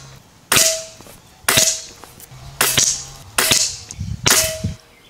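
Gare Falcon fully regulated PCP air rifle shooting five times, about a second apart, each shot a sharp crack followed by a brief ring.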